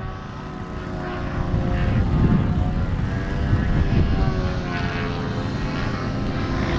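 Propeller-driven RC aerobatic model plane (Extra 300, 58-inch span) droning overhead in flight, its pitch wavering slightly as it manoeuvres, over a low rumble.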